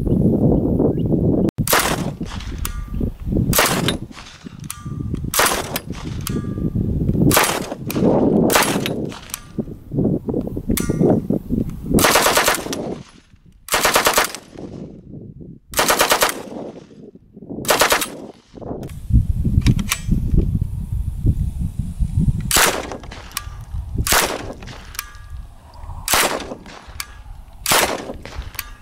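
Sten submachine gun firing 9mm in full auto: repeated short bursts a second or two apart, with a few longer rapid strings about halfway through.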